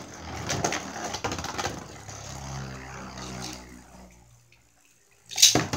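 Beyblade spinning top whirring and rattling on the plastic floor of a stadium, with a low hum that fades away by about four seconds in. Near the end comes a loud, sharp clatter as a second top is launched into the stadium.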